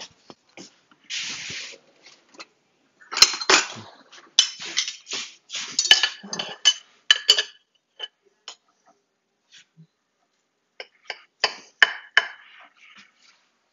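A metal knife and spoon scraping and clinking against a ceramic pie dish while a baked chicken pot pie is cut and scooped out. The sound comes in scattered bursts of knocks and scrapes, some with a short metallic ring, busiest a few seconds in and again near the end.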